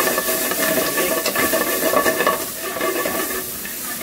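Diced chicken and vegetables sizzling in a stainless steel frying pan as a metal spoon stirs them.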